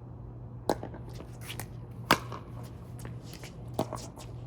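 Pickleball rally: paddles striking the ball in three sharp pops roughly a second and a half apart, with fainter ticks of the ball bouncing on the court between them.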